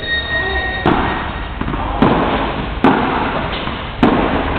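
Padel rally: the ball struck back and forth with paddles, four sharp hits about a second apart.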